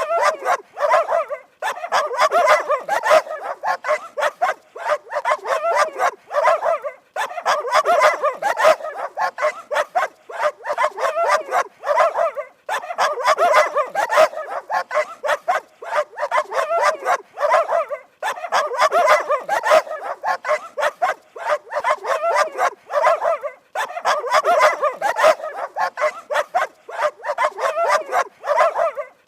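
Dog barking rapidly and without letup, in runs of about five seconds broken by short pauses.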